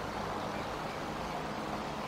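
Steady outdoor background noise: an even rushing hiss with a faint low hum beneath it.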